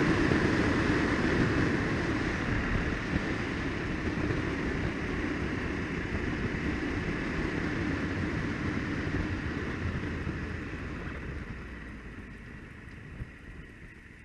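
Motorcycle riding noise from a helmet-mounted camera: wind rush and the Ducati Multistrada 1200S's L-twin engine on the move, dying away steadily over the last few seconds as the bike slows.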